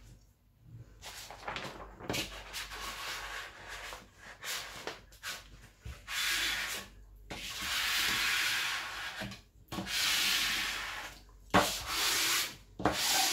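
A hand and a metal ruler rubbing and sliding over the printed cover sheet of a diamond painting canvas, pressing it flat. The sound is a series of long swishes with short pauses between them, most of them in the second half.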